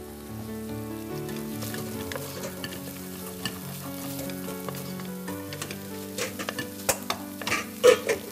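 Wooden spoon stirring a sizzling minced-meat, onion and rice filling in a steel pot on the gas stove, with scraping and small clicks that grow sharper near the end.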